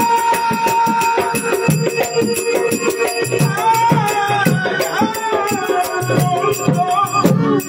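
Amplified Matua devotional folk song through a PA: a man singing into a microphone over a fast, steady percussion beat, with a held note in the first second.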